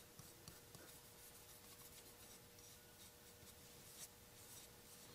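Near silence with faint rubbing: fingertips spreading camellia oil over a steel plane iron.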